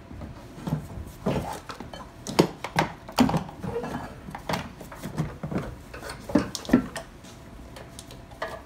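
Hard plastic air filter box knocking and rattling against the engine bay as it is worked down into place, a string of irregular clunks and taps.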